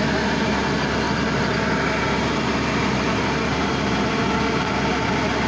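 Hyundai Robex 140W-9 wheeled excavator's diesel engine running steadily, driving a hydraulic earth auger that is boring into the ground.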